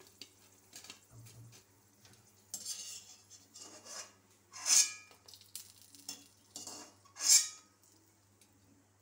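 Steel slotted spoon scraping and clinking against a metal wok as fried dried red chillies are scooped out of the oil, with two louder sharp scrapes about five and seven seconds in.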